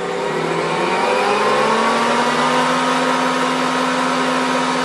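Ankarsrum Assistent stand mixer's motor running up to top speed. Its hum rises in pitch over the first second or so as the speed dial is turned up, then holds steady.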